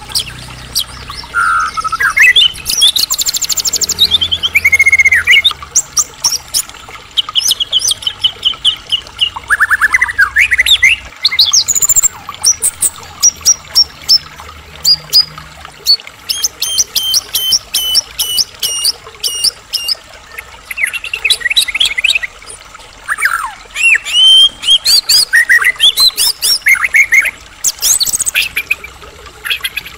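White-rumped shama (murai batu, Medan type) singing at full tilt: a continuous, varied song of rising and falling whistles, rapid trills, runs of repeated short notes and sharp clicking notes, with barely a pause.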